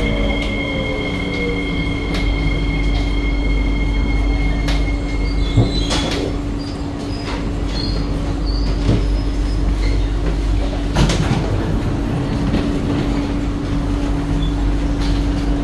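Inside the cabin of an SMRT C151B metro train braking to a stop: a steady high whine over wheel and rail noise that stops about six seconds in. The steady low hum of the train's equipment carries on while it stands, with a few short high pips, then a clunk about eleven seconds in as the doors open.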